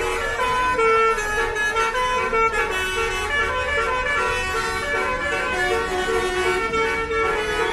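Bus 'telolet' basuri horn, a set of electrically driven air horns, playing a melody of held notes that step from pitch to pitch.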